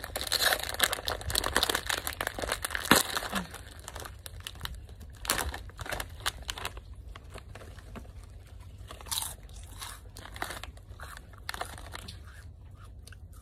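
Crinkling of a clear plastic bag and a foil snack packet being handled and torn open, dense in the first few seconds with one sharp crack about three seconds in, then sparser crackles.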